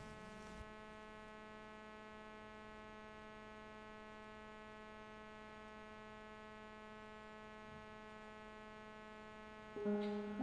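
A faint, steady electrical hum with an even buzz of overtones. Just before the end, a piano starts to play.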